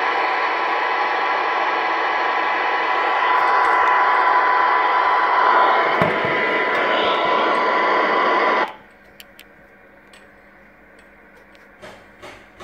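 CB radio static hiss from the set's speaker, with a faint steady whistle in it, cutting off abruptly about two-thirds of the way through. A few short clicks follow near the end.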